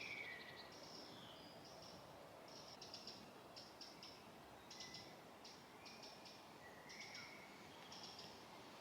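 Faint birdsong: groups of short, high chirps with a few brief falling whistles mixed in.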